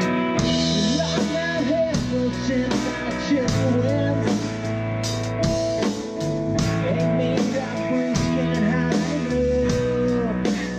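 Blues-rock band playing an instrumental passage: a guitar plays lead lines with bent notes over steady bass and a drum kit.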